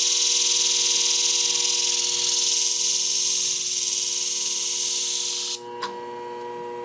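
Hardened steel shear blade grinding against the spinning coarse abrasive disc of a flat hone sharpening machine: a loud high hiss over a steady machine hum. The hiss cuts off suddenly about five and a half seconds in as the blade is lifted off the disc, leaving the hum.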